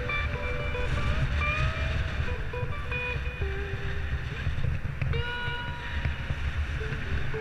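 Wind rumble on the microphone of a bicycle riding along a road, with a melody of held notes stepping from pitch to pitch over it.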